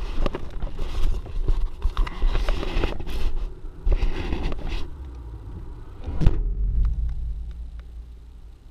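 Knocking and rustling over a low rumble, then one sharp, loud thump about six seconds in, followed by a quieter steady low hum that fades.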